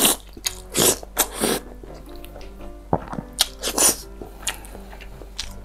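Close-miked mouth noises of someone biting into and chewing a cheese-sauce-covered breaded chicken cordon bleu: a string of short, sharp, wet bite and chew sounds, over background music.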